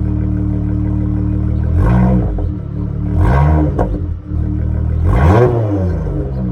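Dodge Charger SXT engine through Flowmaster Super 10 mufflers, idling steadily, then revved three times, each rev rising and dropping back toward idle, the first about two seconds in.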